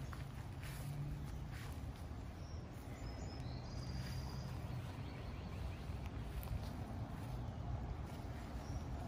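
Outdoor ambience: a steady low wind rumble on the microphone, with a few short high chirps from a bird, one about three and a half seconds in.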